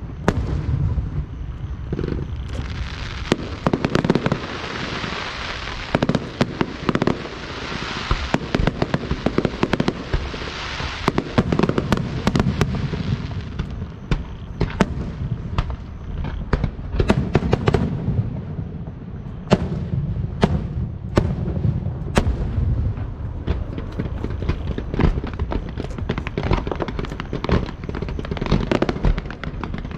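Aerial fireworks bursting in quick succession: a dense barrage of bangs under a thick crackling hiss for the first dozen seconds or so, then louder, more spaced-out bangs.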